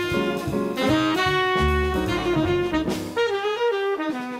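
Background music: a jazzy tune with a held melody line over bass and drums. The bass and drums drop out about three seconds in, leaving the melody alone.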